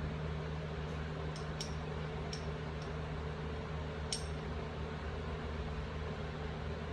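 Steady low mechanical hum of a kitchen appliance, with a few small, sharp clinks of kitchenware being handled in the first four seconds, the loudest about four seconds in.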